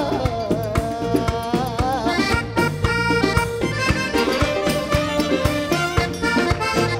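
Studio band playing an instrumental passage, led by accordion with saxophone over a steady drumbeat.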